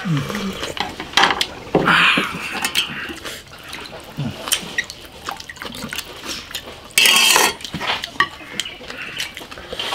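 Soup slurped noisily from bowls, two loud slurps about two seconds and seven seconds in, amid clinks of a metal ladle and spoons against ceramic bowls.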